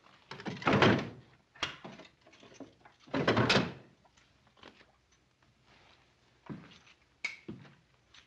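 Wooden drawer in a bookcase cabinet pulled open with a sliding knock about a second in and pushed shut with another about three and a half seconds in, followed by a few lighter knocks and footsteps near the end.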